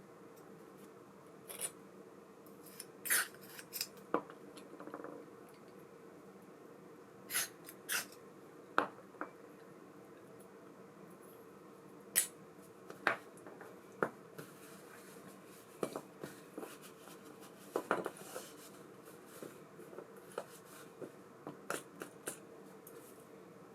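Irregular light clicks and taps of small metal parts and tools being handled while an ABU Ambassadeur 5500C baitcasting reel is worked on.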